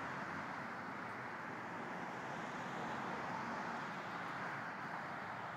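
Steady road-traffic noise: an even hiss of cars and trucks on a street, with no single vehicle standing out.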